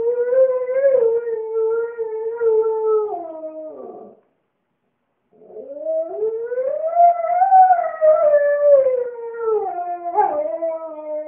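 A husky howling: one long howl that drops in pitch and fades out about four seconds in, then after a short pause a second howl that rises, holds, and slowly falls away.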